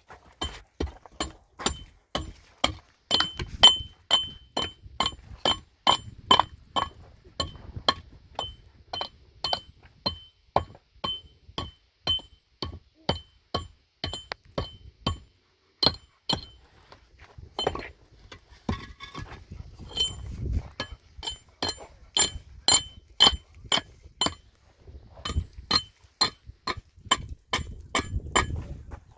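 Steady, repeated metal strikes, about two or three a second, each giving a short clinking ring. The striking pauses briefly past the middle, then starts again.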